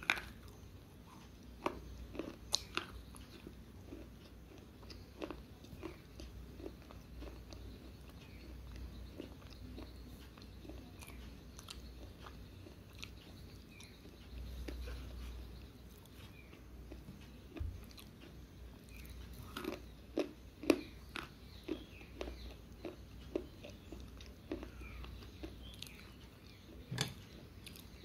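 Slate pencil being bitten and chewed: irregular sharp crunches and snaps of the chalky stick between the teeth. A few louder bites come near the start, about two-thirds of the way through and near the end. This kind of slate pencil is not very crunchy.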